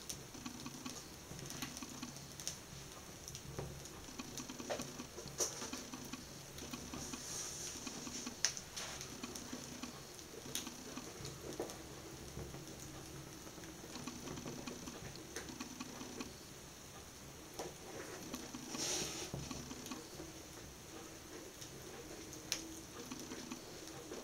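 A burning ballerina flat shoe crackling quietly as its flames burn, with scattered sharp pops and ticks and a short hiss about nineteen seconds in.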